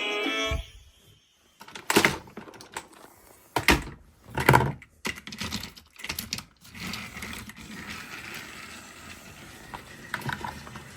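Plastic toy pieces being handled and moved: scattered clicks and knocks, a few louder ones in the middle. It starts just as a short tune from the toy's speaker cuts off.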